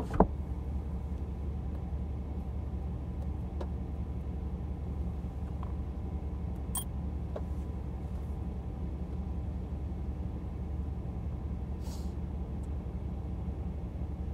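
Vehicle engine running steadily, a low hum heard from inside the cab. A sharp click comes just after the start, and a few faint ticks follow later.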